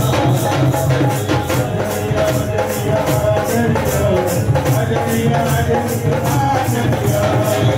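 Live devotional bhajan music from a small temple band: dholak drum and keyboard under a steady jingling shaker or tambourine beat, with a wavering melody line of the kind that a singer or keyboard carries.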